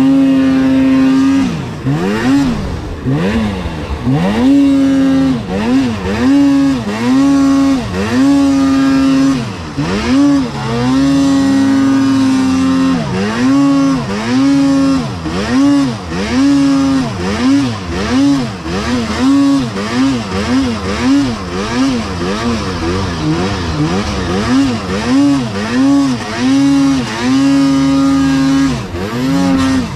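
Snowmobile engine revving hard, the throttle blipped up and down over and over with short stretches held at high revs, as the sled is worked through steep, tight terrain.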